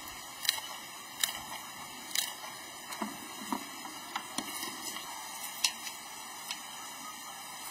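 Kitchen scissors snipping through a whole fish's fins and tail: about ten sharp, crisp snips at irregular intervals.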